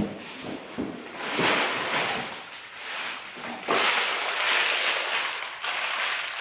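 Sheets of newspaper being crumpled and rustled in two stretches, the louder one starting about four seconds in and stopping short near the end.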